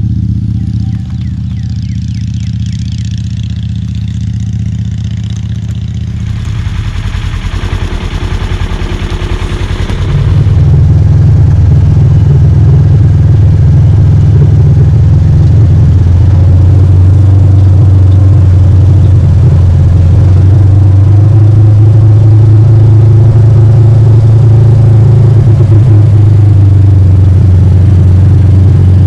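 Side-by-side UTV engine running steadily, with a hiss over it for a few seconds. About ten seconds in it becomes much louder, a steady low drone as the vehicle is driven.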